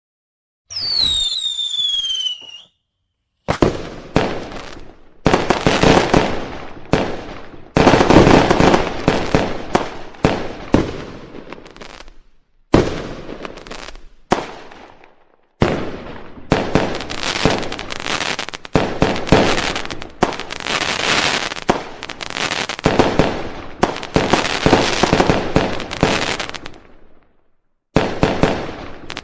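Fireworks: a whistle falling in pitch about a second in, then repeated bangs and dense crackling in clusters, each cluster cutting off abruptly before a short silent gap.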